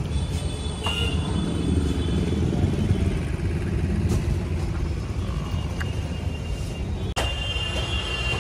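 Steady low rumble of motor vehicles, with a few faint clicks. About seven seconds in it breaks off sharply to a quieter background.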